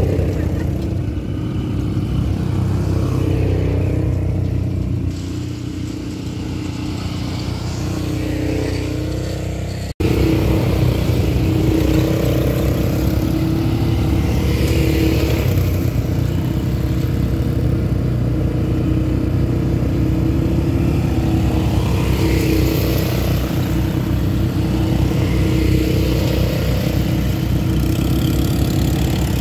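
Quad bike (ATV) engines running and revving up and down as they ride. The sound cuts abruptly about a third of the way in and comes back louder.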